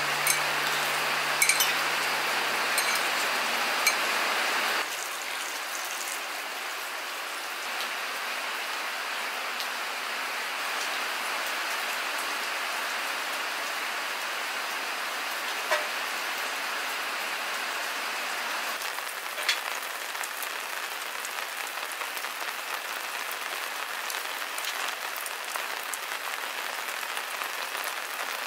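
Steady rain hiss. During the first five seconds a low hum and a few light clinks sit over it, and they cut off suddenly.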